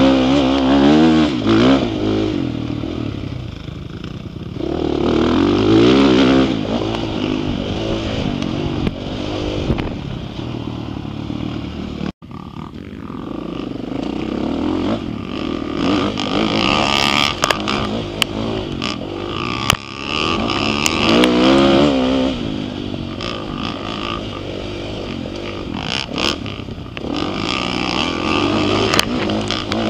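Motocross dirt bike engine revving up and falling back again and again as it is ridden hard round a dirt track, heard close up from the rider's helmet camera. The sound drops out for an instant about twelve seconds in, and there are a few sharp knocks later on.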